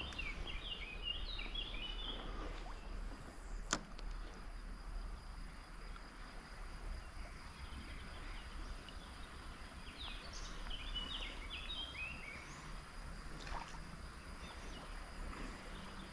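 Quiet outdoor ambience: a steady low background with two short bursts of bird chirping, one at the start and one about ten seconds in, and a single sharp click a little before four seconds.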